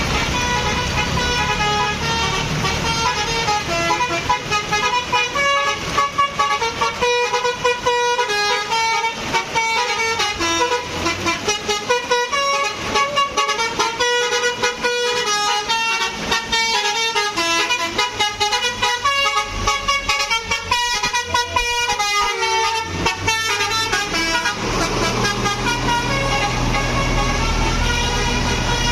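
Intercity bus 'telolet' multi-tone air horn playing a long, fast run of changing notes, one note quickly following another. A bus engine rumbles underneath, louder near the end.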